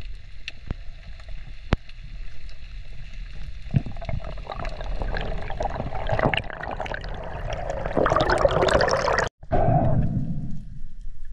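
Underwater camera audio: scattered clicks over a low rumble, then from about four seconds in a rising rush of bubbling, gurgling water as the spearfisher swims up toward the surface. The sound cuts out abruptly for an instant about nine seconds in, then fades.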